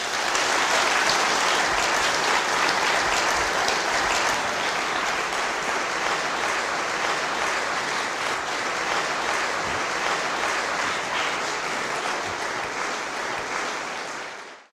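Large seated audience applauding steadily, a dense patter of many hands clapping that fades out quickly at the end.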